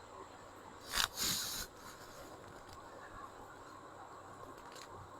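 A sharp click about a second in, followed by a brief papery rustle as something is handled; otherwise faint quiet background.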